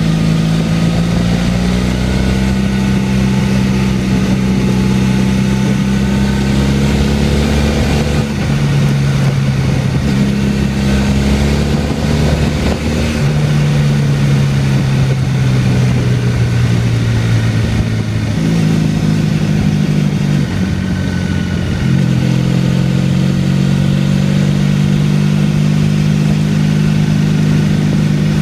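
Motorcycle engine running under way at about 3,000 to 5,000 rpm, its pitch rising and falling with the throttle and stepping abruptly several times, with wind noise rushing over it.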